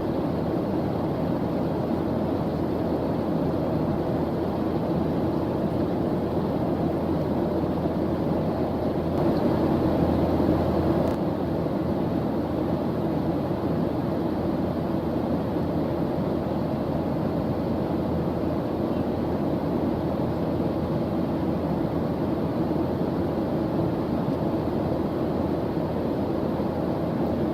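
Steady white-noise background track: an even, deep rushing hiss with most of its weight low, swelling slightly about ten seconds in.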